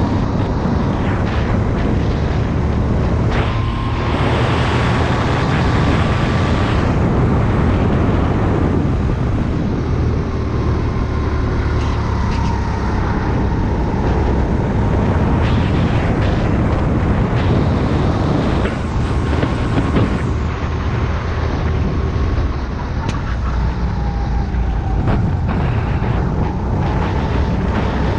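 Sodi rental kart's engine running hard on a fast lap, its note rising and falling with the throttle through the corners, under heavy rushing wind noise.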